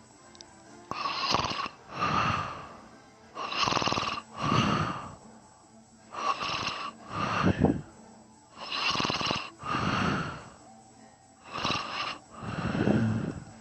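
A person snoring in sleep, in a steady rhythm of about one breath every two and a half seconds, each breath making two noisy sounds in quick succession.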